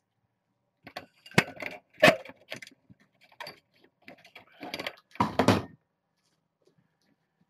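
Kittens scrambling and pouncing on a play rug close to the microphone: a run of sharp knocks, thumps and rattles starting about a second in, loudest in the first two seconds, and stopping just before six seconds.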